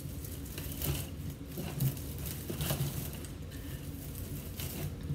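Artificial pine greenery and a grapevine wreath rustling and crinkling as they are handled, with irregular soft crackles.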